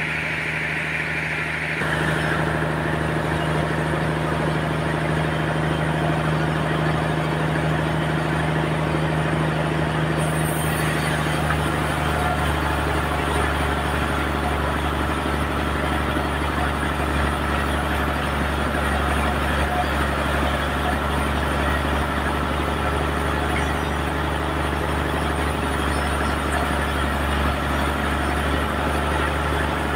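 Sawmill running steadily through a trembesi log, a continuous machine drone. It grows louder and changes character about two seconds in, and shifts again about eleven seconds in.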